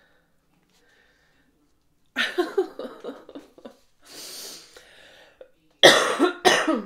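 A woman's catching breaths building to one loud, sudden sneeze about six seconds in, into her hand.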